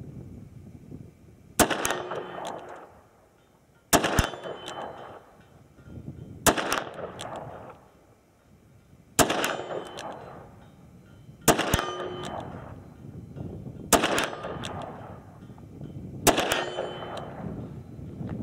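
Seven slow, evenly spaced .357 Magnum shots from a Smith & Wesson Performance Center 686 Plus revolver, about two and a half seconds apart, emptying its seven-shot cylinder. Each shot is followed by an echo and a faint ring from the steel silhouette target being hit.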